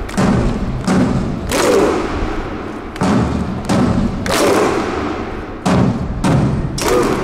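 A series of heavy thumps, irregularly spaced about one a second, each with a short ringing tail.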